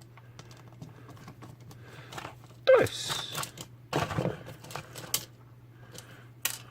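Screwdriver turning small screws out of a plastic CD player case, with scattered light clicks and taps over a faint steady low hum.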